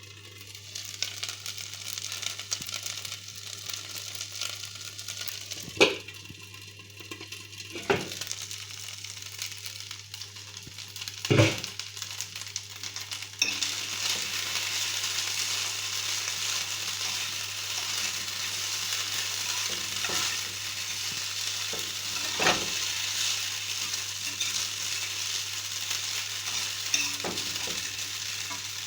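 Food sizzling in a frying pan, a steady hiss that becomes louder about halfway through, with a few sharp knocks against the pan.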